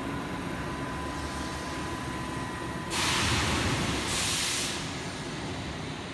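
Seibu New 2000 series train's air brakes releasing while it stands at the platform: two loud hisses of air venting about three seconds in, the second shorter, over a steady high whine and low hum from the train.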